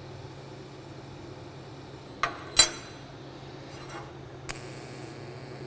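Two sharp metallic clinks close together, metal knocking on the steel welding table, over a steady low hum, with a short hiss near the end.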